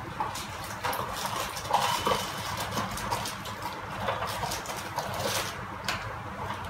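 Handling noise as hands move items in an opened cardboard box: scattered light rustles and small clicks over a steady low hum.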